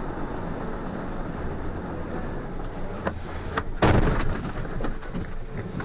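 Vehicle collision heard from inside a truck's cab: steady engine and road noise, a couple of sharp knocks, then about four seconds in one loud crash of the impact followed by scattered clattering of debris.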